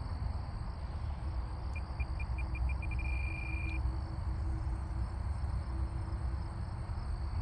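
Wind rumbling on the microphone. About two seconds in, a run of short high pips quickens and merges into a steady high tone that stops about a second later.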